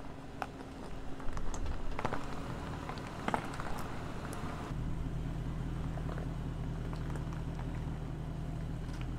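Land Rover Defender 90's supercharged 5.0-litre V8 running at low revs as it crawls over loose rock, with tyres crunching and stones clicking in the first half. From about halfway the engine note is a steadier, slightly louder low rumble.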